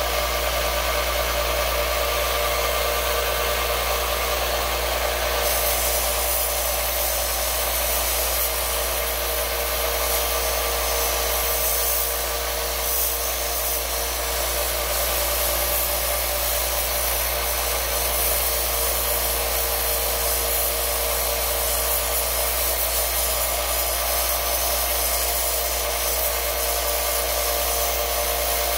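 Small benchtop belt sander running steadily, with a wooden handle held against the moving belt: a constant motor hum under the hiss of abrasive on wood.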